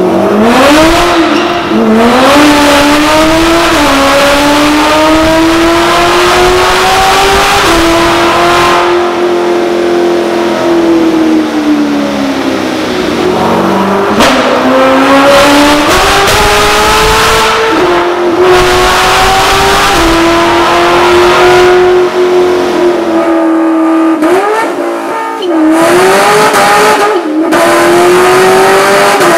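Corvette C7 V8 revving hard on a chassis dyno. Its pitch climbs and holds high, dips once about midway, climbs again, and rises and falls in several quick blips near the end.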